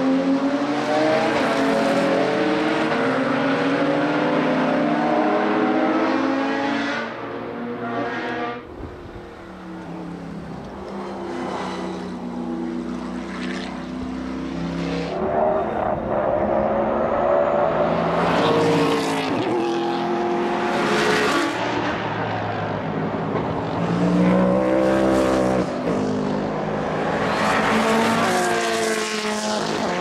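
A string of racing cars at full speed, engines revving high. Early on there are Porsche 911 GT3 Cup cars; their sound fades about seven seconds in. Then further cars pass one after another, each rising in pitch with the revs, dipping at gear changes, and falling away as it goes by.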